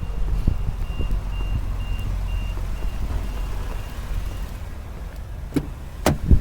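A vehicle's reversing alarm beeping, about two short high beeps a second, fading out about four seconds in, over a steady low engine rumble. A few sharp knocks come near the end.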